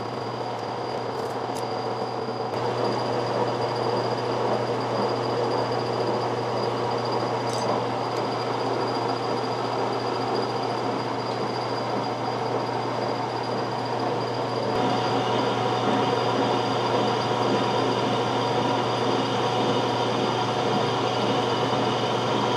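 Milling machine cutting a large radius in stainless steel: a steady machining noise over a constant motor hum with a thin high whine, getting a little louder about two seconds in and again near fifteen seconds in.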